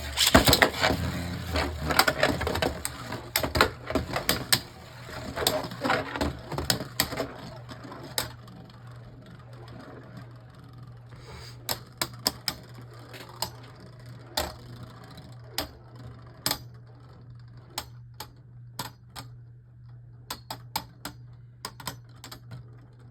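Two Beyblade Burst tops, Viper Hydrax and Dullahan, launched and spinning and clashing in a stadium. There is a dense clatter of hits for the first several seconds, which thins to occasional sharp knocks and clicks as the tops slow down.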